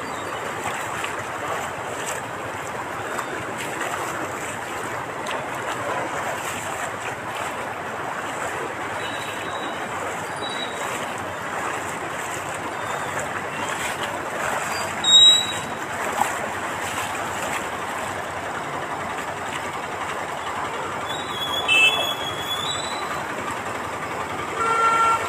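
Floodwater rushing through a street as a steady, even roar of water. Short high-pitched tones cut through briefly about 15 and 22 seconds in.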